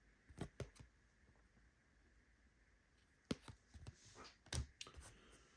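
Trading cards handled and flipped through by hand: a few soft, brief clicks and taps of the cards against each other over near silence, in two small clusters, the first about half a second in and the second from about three seconds in.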